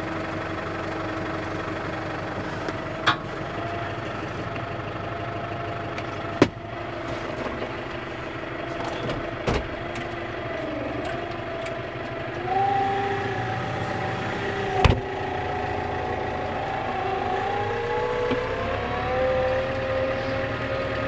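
Skid steer loader's engine running steadily, its pitch rising about twelve seconds in and climbing again near the end as it works. Four sharp knocks from the machine are heard along the way.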